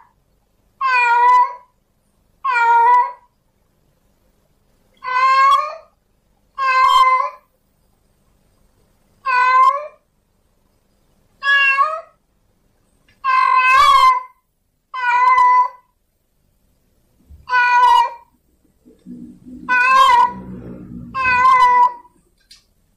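A tomcat in heat meowing over and over: about a dozen calls, each under a second long, with pauses of a second or two between them. This is a male's mating call to a female. A low background noise comes up under the last few calls.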